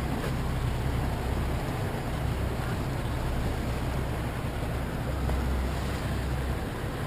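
Speedboat under way at sea: the engine running steadily with wind and rushing water.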